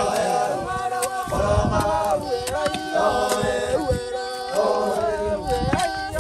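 A group of Dani men singing a work chant together while digging, several voices holding long notes that slide between pitches in short phrases.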